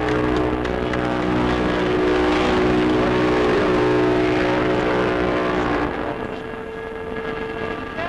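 Battleship USS Wisconsin (BB-64) sounding its horn in one long, steady, deep blast. The blast stops about six seconds in, and a single higher steady tone carries on more faintly.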